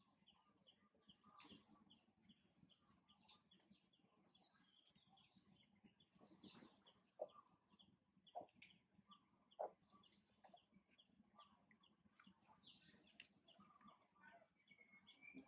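Faint birds chirping and calling, many short chirps one after another, with a few soft clicks about halfway through.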